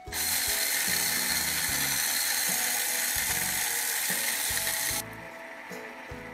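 Homemade electric grinder, a tin can on a motorised base, running loud and even as it grinds koi pellets into powder; it starts abruptly and cuts off suddenly about five seconds in.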